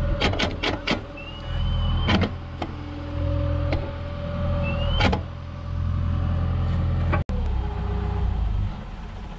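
Excavator's diesel engine running with its hydraulics working as the arm moves, broken by several sharp metallic knocks, most of them in the first second, and two short rising squeals. The engine sound falls away near the end as the machine is shut down.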